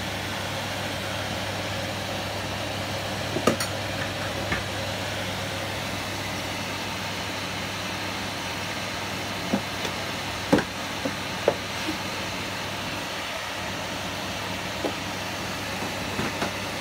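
Mapo tofu sauce with minced pork boiling in a wok: a steady bubbling hiss with a few sharp pops of bursting bubbles scattered through, over a steady low hum.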